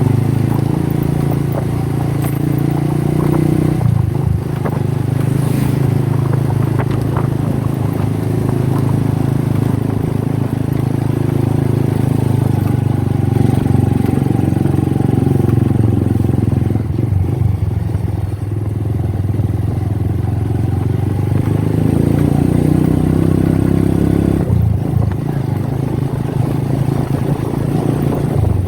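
An engine running steadily, its pitch shifting a few times, most clearly about four seconds in and again near the end.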